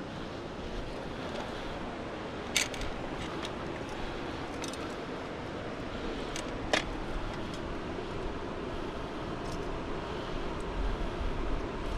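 Steady rush of water pouring over a dam spillway, with a few sharp clicks, the loudest about two and a half seconds in and near the middle.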